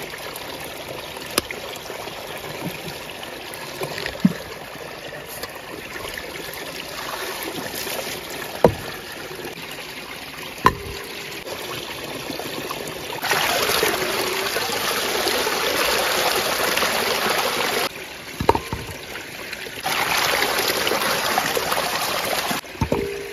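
Water running steadily from a pipe, with a few sharp knocks of peeled cassava pieces and the knife. About halfway in the water gets much louder and splashier, twice for several seconds, as peeled cassava roots are washed by hand under a hose stream pouring into a tub.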